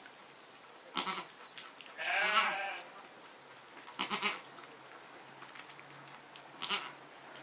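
A goat bleats once, a short call about two seconds in, with a few brief rustling noises before and after it.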